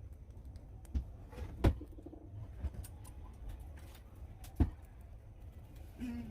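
A few sharp clicks and knocks, two of them loud and about three seconds apart, with a short, low cooing call, like a dove's, near the end.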